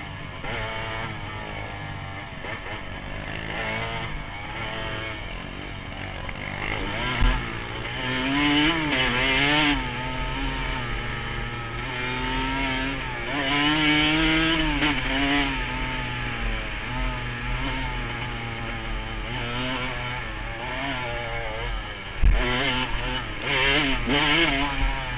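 A 125 cc dirt bike engine revving up and down again and again as the bike is ridden hard over a bumpy dirt track, heard from a helmet camera. Two sharp knocks stand out, about seven seconds in and near the end.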